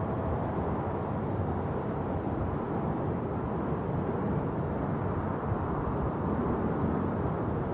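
Jet airliner engines heard as a steady, even rumble, with no rise or fall in pitch.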